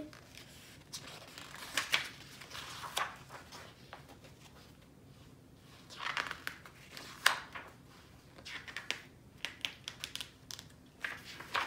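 Pages of a picture book being turned one after another: short papery rustles and flaps at irregular intervals, with quieter gaps between them.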